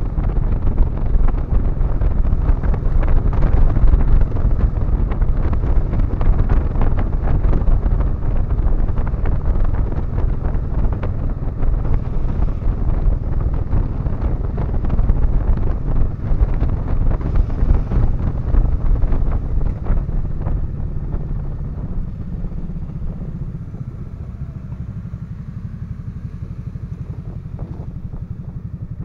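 On-board sound of an Aprilia maxi-scooter riding along, its engine running under heavy wind noise on the microphone. From about three-quarters of the way through it gets quieter and steadier as the scooter eases off.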